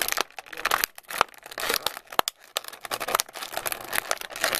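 Clear plastic blister tray crinkling and crackling as fingers press and pry a die-cast figure loose from it, with irregular sharp snaps and clicks of the plastic.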